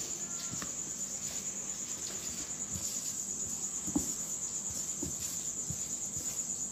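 Hands pressing and patting a marinated chicken piece into dry flour, making a few soft thuds, under a steady high-pitched, evenly pulsing trill that runs throughout.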